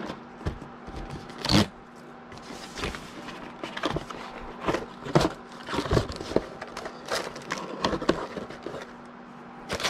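Cardboard box being handled and opened by hand: irregular rustles, scrapes and light knocks of the card as the outer sleeve comes off and the lid flaps fold back.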